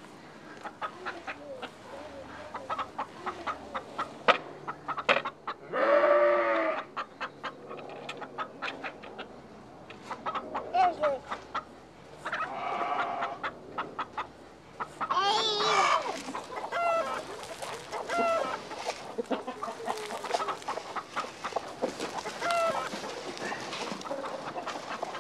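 A flock of chickens clucking, with many short clucks and a few longer, drawn-out calls about six, thirteen and fifteen seconds in.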